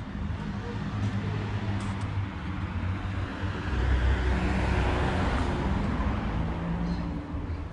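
A car driving past on a street, its engine and tyre noise swelling to a peak about four to five seconds in and then fading, over a low steady engine hum.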